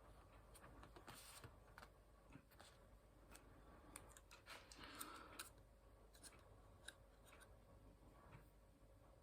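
Near silence with faint, scattered clicks and taps from darts and a dart case being handled, about a dozen irregular ticks.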